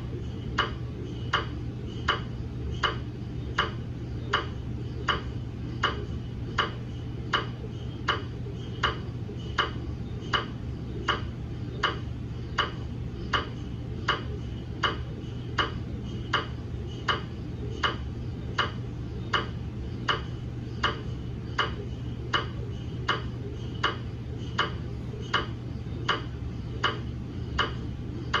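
MRI scanner's gradient coils knocking in a steady rhythm, about one and a third knocks a second, as a scan sequence runs. Under it is a steady low hum.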